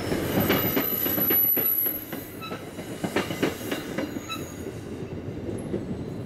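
NJ Transit passenger train's last cars rolling past, wheels clicking over the rails with a thin high wheel squeal for about a second and a half. The rumble then drops and fades as the train moves away.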